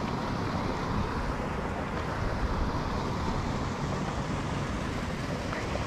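Steady low rumbling noise from wind and body movement on a chest-mounted GoPro's microphone.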